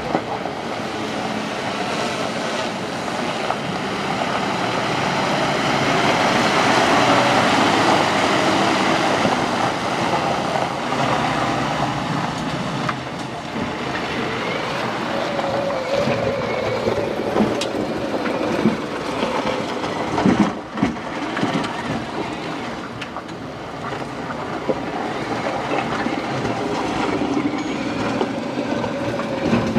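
Mercedes Unimog truck's diesel engine and drivetrain running as it drives over rough off-road terrain, with rattling from the body and a whining tone that rises and falls. A couple of hard knocks come about two-thirds of the way through.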